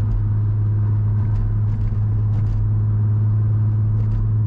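Steady low drone of a vehicle driving on the road, heard from inside the cabin, with a few faint brief ticks.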